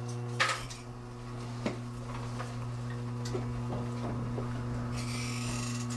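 Electric dental chair motor humming steadily as the backrest raises the reclined patient to sitting. A few light clicks sound over it, and there is a short hiss near the end.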